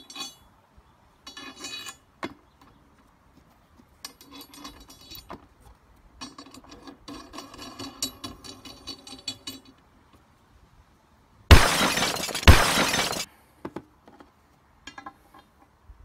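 Steel hex nuts and a washer being turned by hand on a threaded rod, with small metallic clinks and rattling as the nuts run along the threads and parts touch the steel table. About two-thirds of the way through, a much louder harsh noise lasts nearly two seconds, starting twice.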